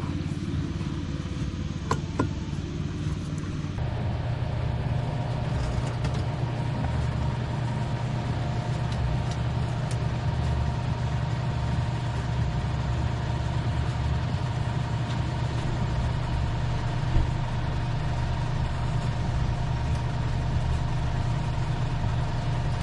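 A small engine running steadily, a little fuller about four seconds in. There are a few sharp metallic clinks about two seconds in.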